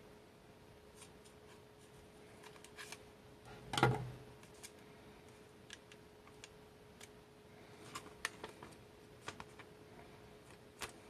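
Scissors cutting through folded origami paper, then the paper being handled and creased, with scattered small clicks and rustles. The loudest sound is a single sharp knock about four seconds in, and a faint steady hum runs underneath.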